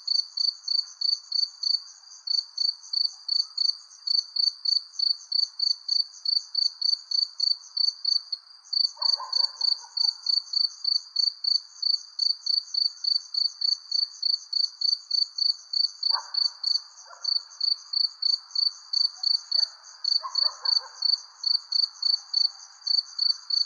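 Crickets chirping steadily in an even rhythm of about two to three high chirps a second, with a brief break about a third of the way in, over a faint night-time background hiss with a few soft, short sounds.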